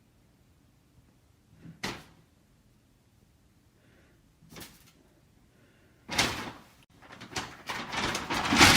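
A sharp knock about two seconds in and a fainter one a few seconds later, then a loud, busy stretch of knocking and rustling noise through the last few seconds.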